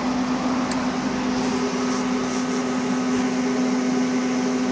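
Steady electrical hum over a fan-like rushing noise, from a running machine.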